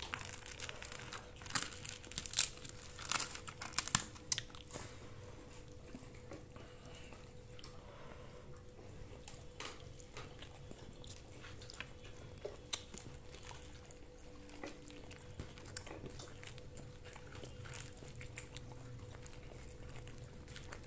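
Someone eating and handling food: chewing, tearing and small clicks and crinkles, busiest and loudest in the first few seconds, then sparse.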